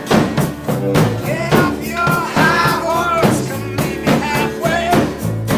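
A rock band playing, with a drum kit keeping a steady beat of about two hits a second. From about two seconds in, a wavering melody line rises and falls over it.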